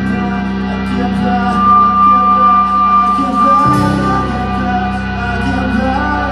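Live rock band music with amplified guitar, including one long held high note near the middle.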